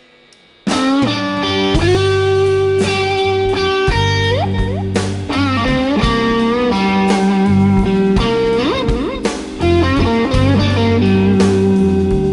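Electric blues band playing a song's instrumental intro, led by electric guitar with bent notes, starting suddenly under a second in.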